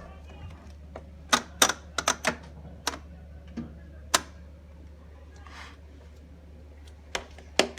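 Irregular sharp mechanical clicks, about ten of them and several bunched together early on, from a Whirlpool dishwasher's door latch and controls being worked to start it. A steady low hum runs underneath.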